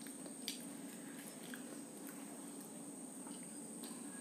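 Faint chewing of a crisp panipuri puri, with scattered small crunches over a steady low hum.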